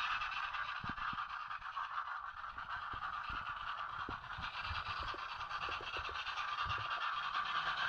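Model railway train running: a steady motor whir with scattered light clicks.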